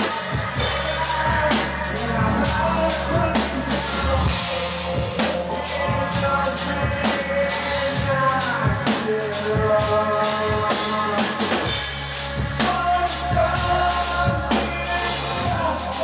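Live band playing a song: a drum kit keeps a steady beat under electric guitar.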